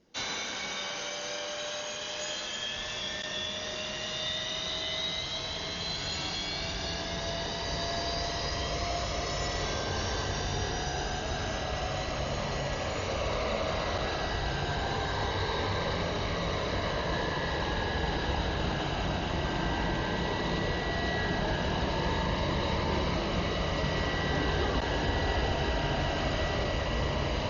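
Electric wall-mounted hand dryer blowing: a loud, steady rush of air that starts suddenly, with a motor whine that climbs in pitch over the first several seconds as it spins up, then holds.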